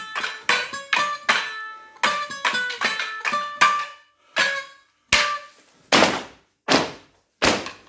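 Wooden Morris dance sticks clashing together in a quick rhythm, each knock ringing briefly. This gives way to four heavy thuds of stick ends struck on a wooden floor, a little under a second apart.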